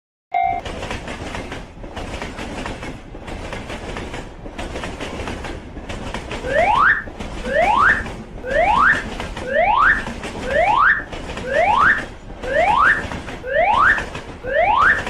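Cartoon railroad-crossing sound effects: the steady rushing noise of a passing train. From about six seconds in, a rising whoop tone repeats roughly once a second as the crossing's odd warning signal.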